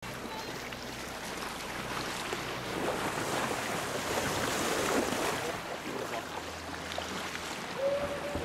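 Sea water rushing and splashing along the hull of a moving boat, with a low steady engine hum and wind on the microphone.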